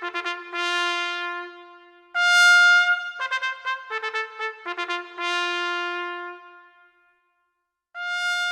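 Solo trumpet playing a call-like phrase of quick repeated notes and longer held notes. It breaks off about seven seconds in and starts a new phrase near the end.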